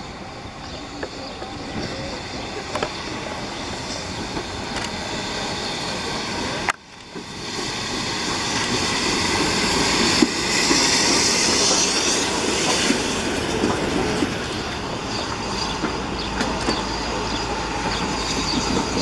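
BR Standard Class 2 2-6-0 steam locomotive No. 78018 and its train of carriages running past, with steady wheel and rail noise. The sound breaks off for an instant about seven seconds in, then comes back louder, with a hissing rush loudest around the middle as the engine passes close by.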